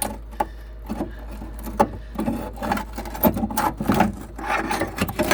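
Pry bar levering a 2002 Nissan Pathfinder's lower control arm back and forth: irregular metal knocks, creaks and scraping. The arm moves because its bracket has rusted through and separated from the frame.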